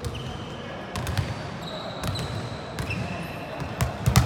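Volleyball play: the ball is struck several times, with sharp smacks, and sneakers give short high squeaks on the court floor. Players' voices are heard under it.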